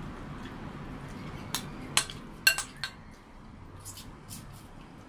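Dishes and utensils clinking at a meal table: a handful of sharp clinks about one and a half to three seconds in, the loudest ringing briefly, then a few fainter clicks.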